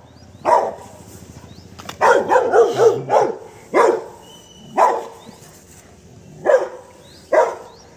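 Young Rottweiler barking at a cobra it is confronting: short, separate barks, with a quick run of several about two seconds in, then single barks a second or so apart.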